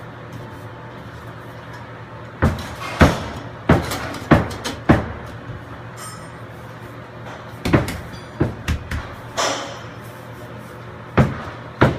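Irregular hard knocks and clunks, about a dozen in two bunches, with a short ringing clink about six seconds in, over a steady low hum.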